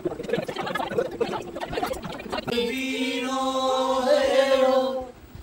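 A jumble of overlapping voices, then about two and a half seconds in a single voice sings a song unaccompanied, holding long steady notes.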